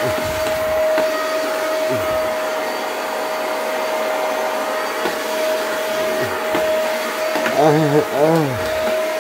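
Household vacuum cleaner running steadily: a constant high motor whine over a rushing of air.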